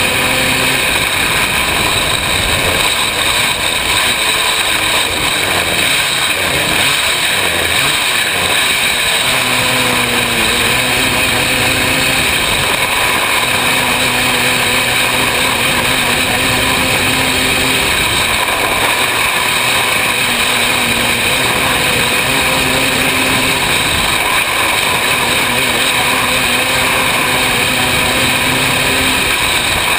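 Open 500cc winged micro sprint car's engine at racing speed, heard from on board: it runs at high revs, its pitch dipping and climbing again several times as the car laps. A steady rush of noise lies under it.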